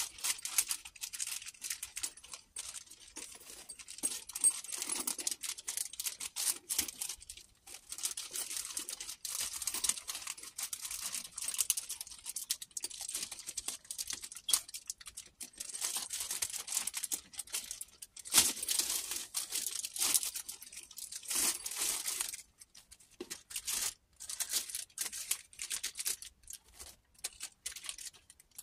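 Clear plastic poly bag crinkling and rustling as it is handled and pulled open, with irregular small clicks and taps throughout.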